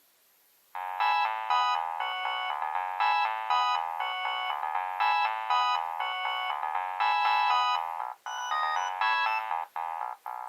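Nokia 3200 mobile phone playing a polyphonic ringtone: a synthesized melody of short notes, several sounding at once, that starts suddenly under a second in.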